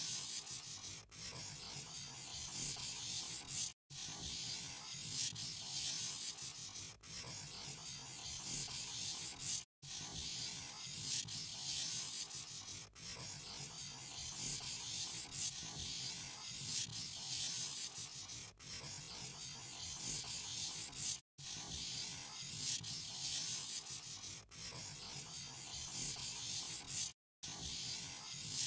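Pen scratching continuously across paper as lines are drawn, broken by four short silent gaps.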